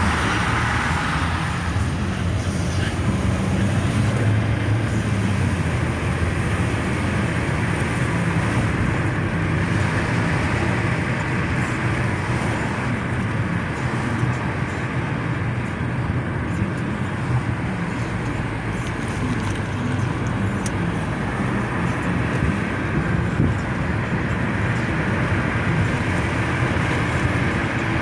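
Steady road and engine noise of a passenger car driving, heard from inside the cabin: a continuous low rumble with tyre hiss.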